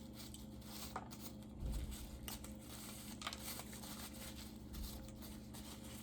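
Faint eating sounds: soft chewing with scattered small clicks and rustles of food being handled, and a low thump about a second and a half in.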